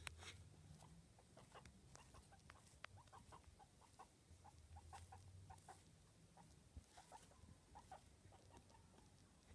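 Guinea pig making a quick series of faint, short clucking squeaks, a few a second, while it noses through wood-shaving bedding, with light rustles of the shavings.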